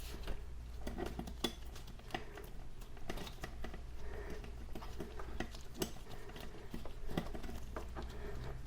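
Scattered light metallic clinks and knocks as the drive chain is worked off the rear wheel's sprocket, with irregular taps throughout.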